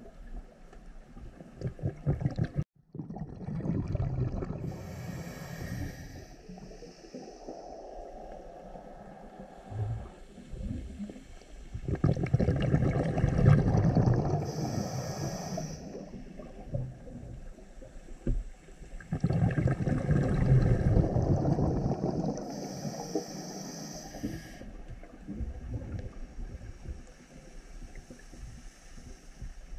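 Scuba diver breathing through a regulator underwater: three long rushes of exhaled bubbles, about eight seconds apart, each with a high hiss near its end, and quieter rumbling between breaths.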